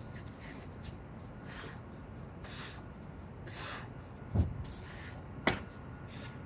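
A man breathing hard in short, forceful breaths about once a second while doing burpees with push-ups. A dull thud comes about four seconds in and a sharp click or slap a second later, as his body and hands work against the concrete.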